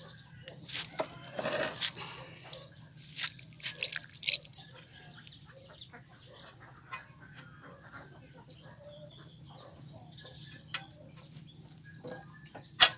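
Scattered clicks and knocks of hands working at the fuel filter fitting of a Kubota ER65 diesel engine while water-contaminated diesel is drained off, thickest in the first few seconds, with one sharp click near the end. A steady high insect buzz runs underneath.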